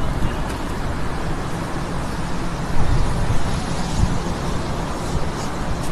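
Steady low rumble of outdoor background noise, with a couple of brief louder bumps a few seconds in.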